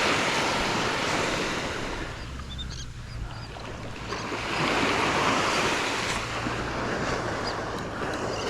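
Ocean surf breaking and washing up the beach, swelling twice, with wind on the microphone.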